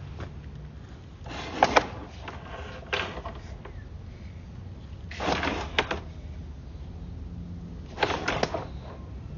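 Sewer inspection camera's push cable being fed into the line by hand in short pushes: four brief bursts of scraping and rattling with sharp clicks, over a steady low hum.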